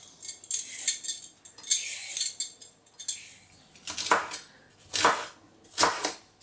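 A vegetable peeler rasps thin strips off a carrot in a few quick strokes. Then a chef's knife chops through the carrot strips onto a wooden board, three cuts about a second apart.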